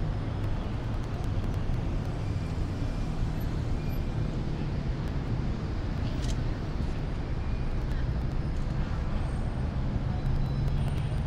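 Steady low rumble of busy ambient background noise, with no distinct event standing out.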